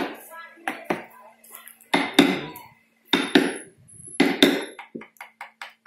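Wooden mallet striking a carving chisel into a wooden relief panel: irregular sharp knocks, several in pairs, then a quick run of lighter taps near the end.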